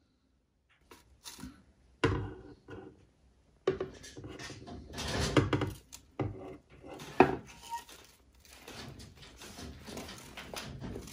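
Steel snake hook clattering, tapping and scraping against a small acrylic enclosure, with sharp knocks about two, four and seven seconds in.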